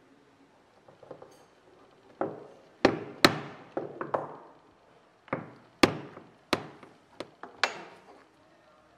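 A hole punch being struck about ten times to punch a small round hole through the end of a leather strap on a plastic cutting board. The sharp knocks come in two runs, one about two seconds in and another about five seconds in.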